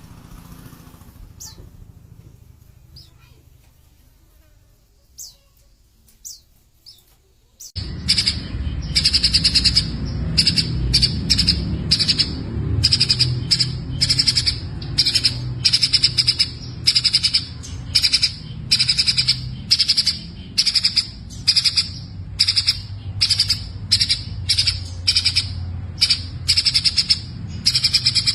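Sunbirds calling: a few faint high chirps at first, then, about eight seconds in, loud, high-pitched rapid twittering phrases repeated again and again, over a low rumble.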